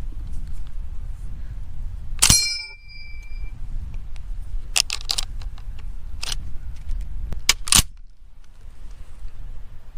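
A loud sharp metallic strike about two seconds in that rings on briefly, followed by five lighter sharp cracks, over a steady low rumble.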